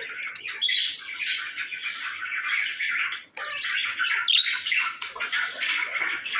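Several small pet parrots kept as love birds chattering and squawking, shrill calls following one another with only brief breaks.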